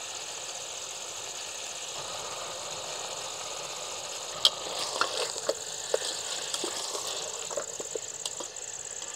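Chicken and onions sizzling in a frying pan over a steady chorus of crickets. From about four and a half seconds in, a sharp clink and then a run of clinks and scrapes as a utensil stirs the pan.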